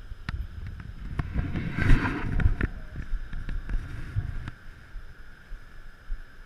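Scattered knocks and clicks from handling on the fishing boat as an angler pumps a heavily bent rod against a hooked sturgeon, with a rush of wind on the microphone loudest about two seconds in. The knocking dies away after about four and a half seconds.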